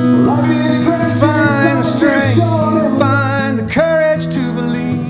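A song playing: a voice singing over acoustic guitar, the sung line ending about four seconds in while the guitar carries on.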